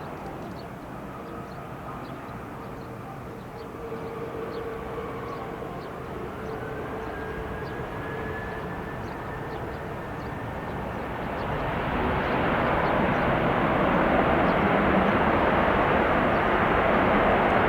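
Jet aircraft engines: a whine that rises in pitch, then the broad rush of the jets swelling much louder from about eleven seconds in and staying loud.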